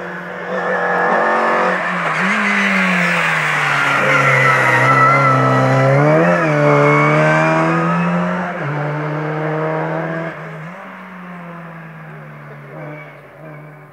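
A rally car's engine approaching and passing, its pitch dropping and climbing again with several gear changes as it brakes into a hairpin and accelerates out. It is loudest in the middle and fades as the car pulls away.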